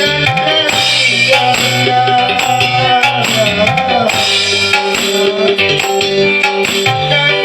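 Music: a wavering melody over drums and a shaking tambourine.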